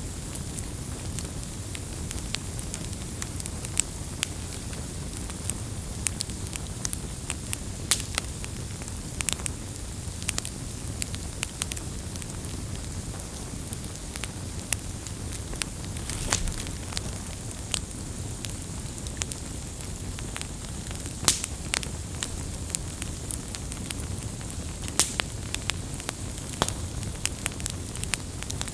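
Wood campfire burning: a steady low rumble and hiss of the flames with frequent irregular sharp crackles and pops, a few louder snaps among them.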